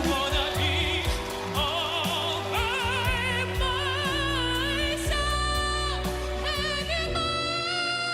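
A singer holding notes with wide vibrato over backing music. The voice climbs in steps to a long, steady high note about five seconds in, then rises higher again near the end.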